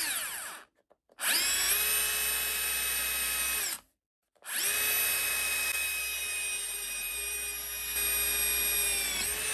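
Bosch UniversalHammer 18V cordless SDS-plus rotary hammer drilling into a steel bar held in a vise. Its motor whines steadily in two runs of about three and five seconds with a short pause between. Each run spins up at the start and winds down as the trigger is released.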